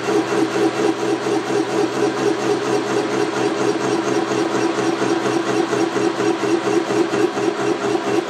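Large milling machine skimming a cylinder head with its wide cutting head. The sound is a steady machining noise that pulses evenly, about five times a second.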